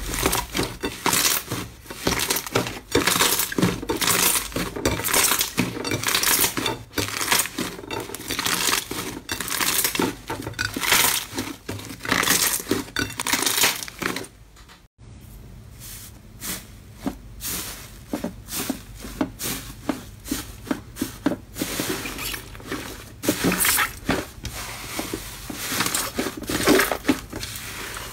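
Thick slime squeezed and kneaded by hand on a plate: a dense run of sticky crackles, squelches and small air-bubble pops, with a brief lull about halfway through.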